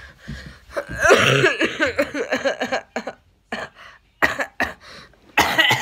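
A boy coughing repeatedly: a longer rough coughing fit about a second in, then a few short separate coughs near the end.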